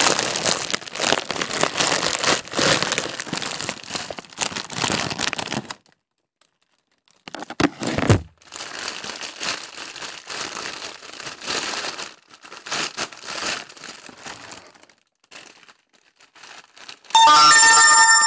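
Parcel packaging crinkling and tearing as it is opened by hand, in stretches with a pause. A low knock comes about eight seconds in, and a loud, brief squeal near the end.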